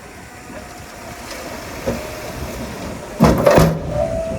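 Heavy earthmoving machinery running with a steady low rumble, then a loud cluster of clanks about three seconds in.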